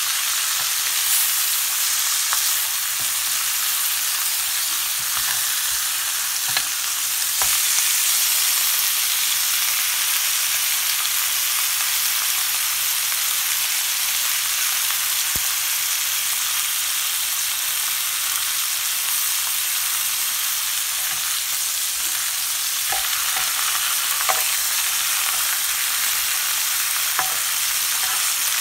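Marinated pork chops sizzling steadily in a ridged cast-iron grill pan, with a few small pops of fat here and there.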